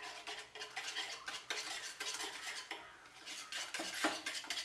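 Wire balloon whisk beating a runny egg, sugar and melted-butter batter in a plastic bowl: fast, continuous clicking and swishing of the wires against the bowl, easing off briefly about three seconds in.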